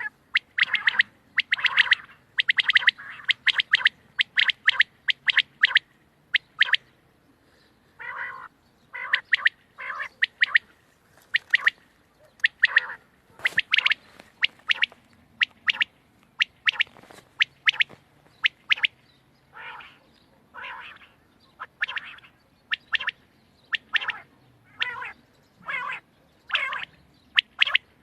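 Quail calling over and over: short, sharp notes in quick runs of two or three, with short pauses between.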